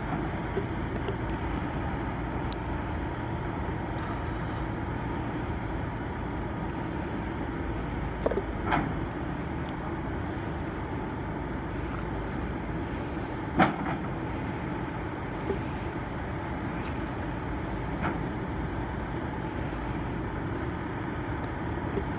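Diesel engine of a Liebherr LTR 1100 telescopic crawler crane running steadily while it holds a yacht on its hook, with a few short sharp metallic knocks from steel gear on the work pontoon, the loudest a little past halfway.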